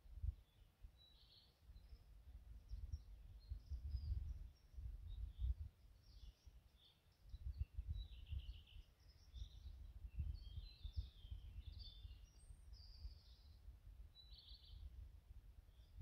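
Several songbirds singing in short, high chirping phrases across the whole stretch, with no one species standing out. Underneath them runs a low, irregular, gusty rumble of wind noise that surges louder than the birdsong.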